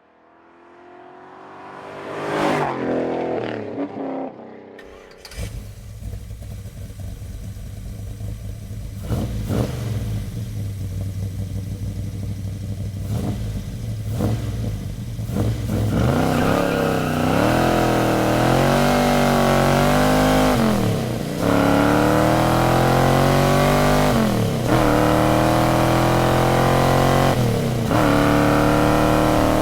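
Modified 1970 Chevrolet Chevelle with a 486-cubic-inch big-block V8 and Flowmaster exhausts. Its engine note swells up and falls away in the first few seconds, then settles into a deep running rumble. From about halfway through it accelerates hard through the gears, the pitch climbing, then dropping briefly at each of three shifts.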